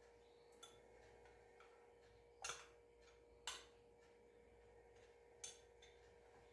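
Near silence with a faint steady hum, broken by a few faint clinks of a metal spoon against a small glass bowl and a saucepan as ingredients are spooned into the pan.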